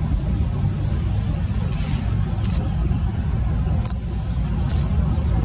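BNSF diesel locomotives passing close by on a curve: a loud, steady low engine rumble with wheel and rail noise, broken by a few brief high-pitched ticks.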